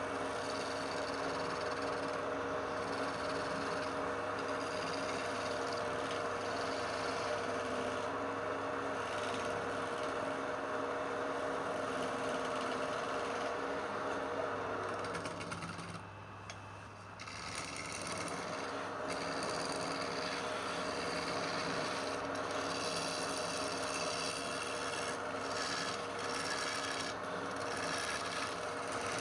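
Wood lathe running with a steady motor hum while a tool scrapes against the spinning wood. About halfway through, the tool comes off and the sound drops briefly, then the cutting resumes.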